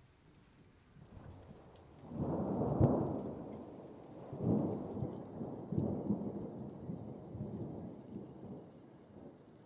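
Thunder rumbling over faint rain: a roll swells about two seconds in and peaks, then further rolls follow and fade away.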